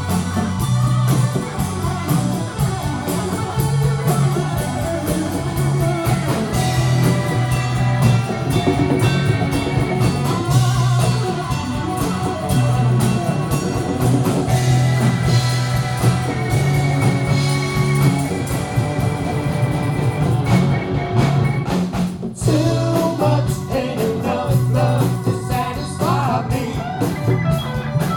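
Live blues-rock band playing: electric guitars and drum kit with a steady low bass pulse, and a lead voice over the top. The music drops out briefly about 22 seconds in, then picks up again.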